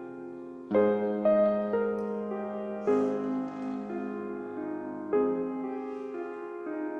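Slow, gentle piano music: sustained chords, each new one struck and left to fade, a few seconds apart.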